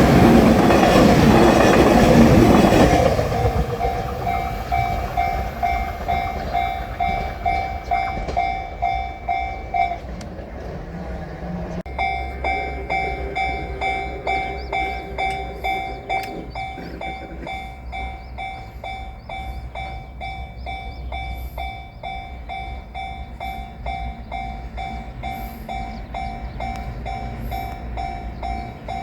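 A train passing over a level crossing, its rumble fading out about three seconds in, followed by a Japanese level-crossing warning bell ringing in a steady repeating rhythm. The bell stops about ten seconds in and starts again about two seconds later, the sign of the crossing being triggered again for the next train.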